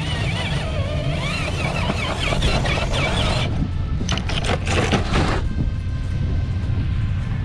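Electric motor of a Traxxas TRX-4 Defender RC crawler whining up and down in pitch as it climbs, then a run of knocks and scrapes from about three and a half seconds in as the truck tips over onto its side against the rock. A steady low rumble lies underneath throughout.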